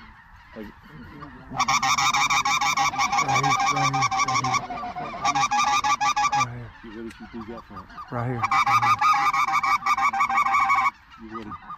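Goose calling: rapid, loud runs of high yelping goose calls, three long runs with short gaps of lower calls between, as flocks of specklebellies (white-fronted geese) work over the blind.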